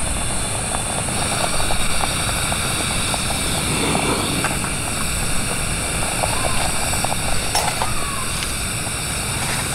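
Portable canister gas stove burner running steadily, with a pot of soup boiling on it.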